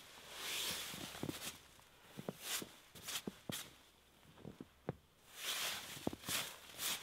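Snow being brushed off a tent fly by a gloved hand: two longer swishes, about half a second in and again about five seconds in, with short crunches and ticks from footsteps in snow between.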